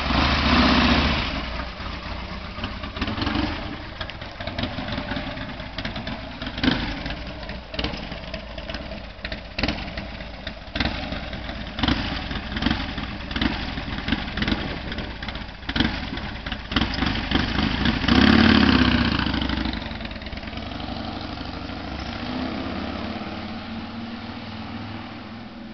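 Harley-Davidson chopper's V-twin engine revving, then idling with an uneven, lumpy beat. About two-thirds of the way through it revs hard as the bike pulls away, and the exhaust note fades off into the distance.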